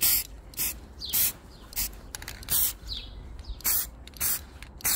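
Aerosol can of grey primer spray paint fired in short puffs, about eight quick bursts of hiss a little over half a second apart. Birds chirp faintly in the background.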